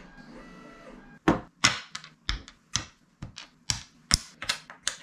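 Hard plastic 3D-printed parts being set down one at a time on a wooden floor: a series of sharp clicks and knocks, about two a second, starting about a second in.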